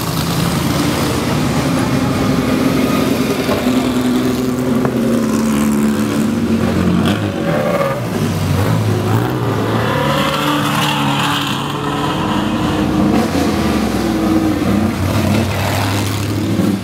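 A line of vintage race cars driving past one after another at parade pace. Their engines run loud, with the pitch rising and falling as each car passes and changes throttle.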